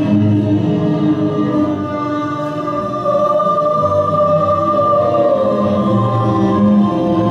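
Slow background music of long held notes.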